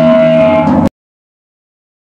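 A black metal recording's sustained held notes end abruptly less than a second in, followed by dead digital silence: the gap between two tracks of the demo.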